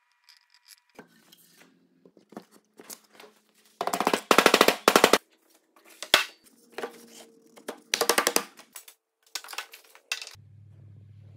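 Workshop glue-up: three loud runs of rapid rattling clicks with scattered knocks between them as the wooden table base and its bar clamps are handled and set. A steady low hum starts near the end.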